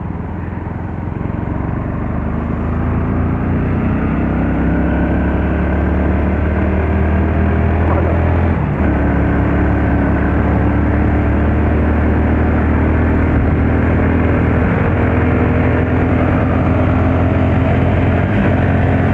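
Motorcycle engine under way, its pitch climbing steadily as the bike accelerates, then dropping suddenly about nine seconds in at an upshift, after which it runs on at a steady pitch.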